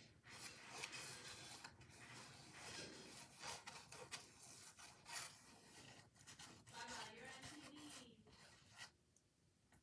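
Bristle paintbrush scrubbing and dabbing on a textured stretched canvas: a run of short, irregular scratchy strokes. The strokes stop shortly before the end.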